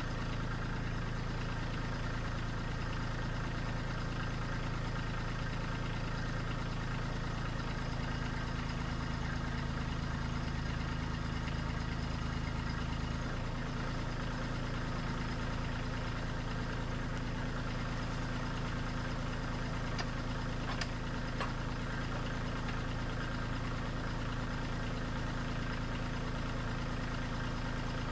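Kubota diesel engine idling steadily, with a slight shift in its low hum partway through.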